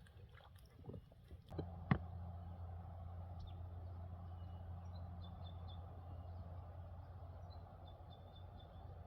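Faint small-bird chirps, short and repeated, over a steady low hum. A sharp click comes about two seconds in.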